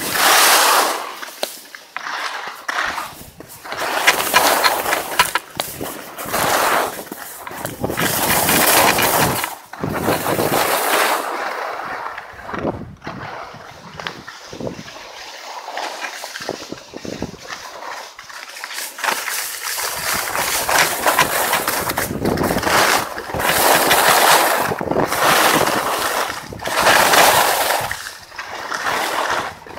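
Skis scraping and hissing over packed snow, swelling and fading every second or two with the turns of a run down the slope.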